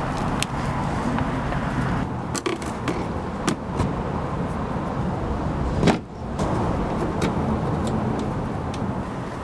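Car driving, with steady engine and road rumble and several sharp knocks, the loudest about six seconds in.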